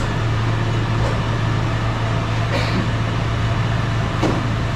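Cargo truck's engine idling steadily as a low, even hum, with a few light knocks.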